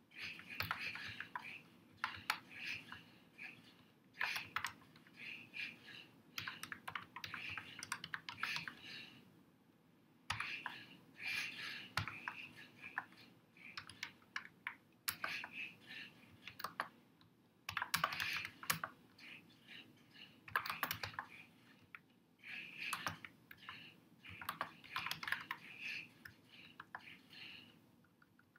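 Typing on a computer keyboard: quick runs of key clicks in bursts, with short pauses about ten seconds in and again about twenty-two seconds in.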